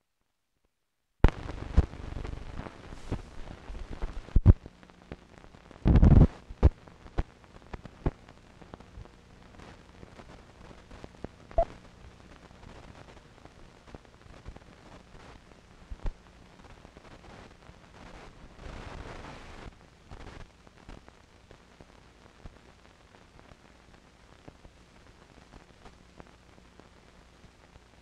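Irregular crackles and pops over faint hiss and a steady low hum: the surface noise of an old film print's soundtrack. There is a louder crackling burst about six seconds in, and it quietens after about eight seconds.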